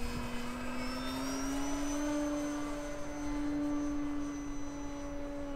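Radio-controlled model airplane flying, its motor and propeller giving a steady droning hum that rises slightly in pitch a second or two in, then holds.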